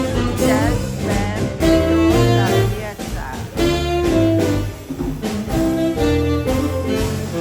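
Background music: a jazzy instrumental with a saxophone-like melody over a steady bass line.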